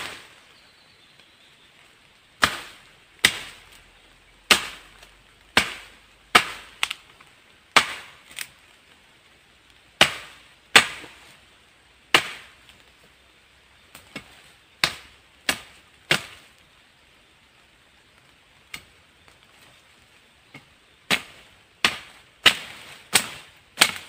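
Chopping wood with the axe of a multifunctional shovel, cutting through a fallen alder trunk about 6 cm thick: about two dozen sharp chops, roughly one a second, with a pause of a few seconds past the middle.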